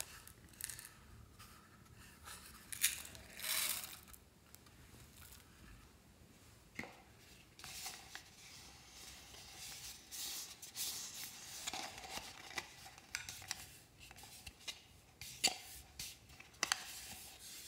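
Hands handling a small box and a plastic jack-o'-lantern bucket: scattered rustling and scraping with light clicks, a louder rustle about three seconds in and a few sharp clicks near the end.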